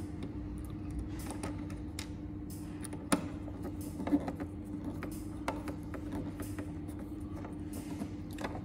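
Scattered small clicks and taps of hands refitting the screws and front cover on a plastic Geyserwise geyser controller housing, the sharpest about three seconds in, over a steady low hum.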